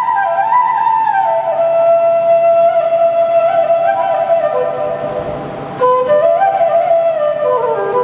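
Bansuri bamboo flute playing a ringtone melody: quick ornamented runs at first, then longer held notes. The phrase softens about five seconds in and a new phrase begins about a second later.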